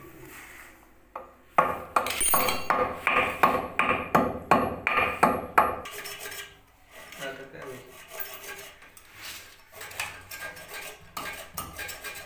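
Hard hand tools knocking against a ceramic toilet bowl: a quick, ringing run of strikes, about three or four a second, for some four seconds, then lighter clicks and scrapes.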